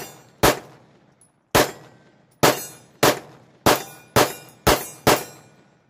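A Sig Sauer P365 .380 ACP pistol firing about nine shots in quick succession, spaced half a second to a second apart, each a sharp crack with a short echo.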